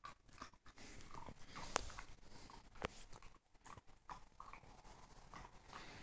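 Faint rustling of a hand stroking and rubbing a young Alaskan husky's fur, with two sharp clicks about a second apart.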